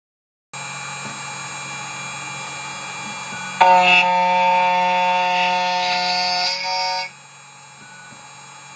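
CNC key cutting machine running as it cuts an SX9 key blank, with a steady whine made of several tones. About three and a half seconds in it gets louder, with strong high tones added, for roughly three and a half seconds. Then it settles to a quieter steady hum.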